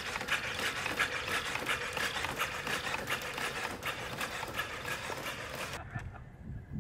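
Quadruped robot dog's leg motors and gearing running as it walks: a steady faint whine under rapid, dense mechanical clicking and ticking. The sound cuts off suddenly near the end, leaving a quieter low rumble.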